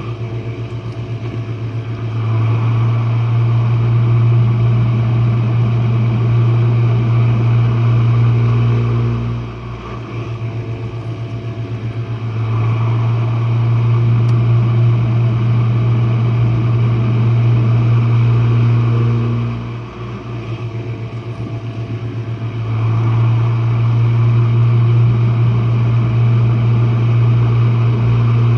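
Jenn-Air dishwasher running its wash cycle, heard from the bottom near the pump motor: a loud, steady low hum with a hiss above it. The sound swells and eases in a regular cycle about every ten seconds, with a brief flutter each time it dips.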